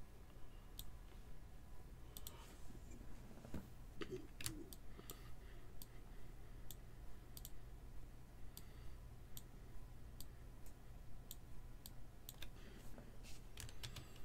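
Computer mouse and keyboard clicks, scattered and irregular, as names are selected and copied into a list on screen, over a faint steady low hum.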